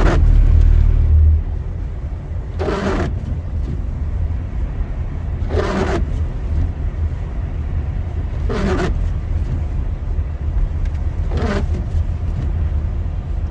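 Car driving on a snowy highway, heard from inside the cabin: steady low road and engine rumble, a little louder for the first second or so. A short sound repeats about every three seconds.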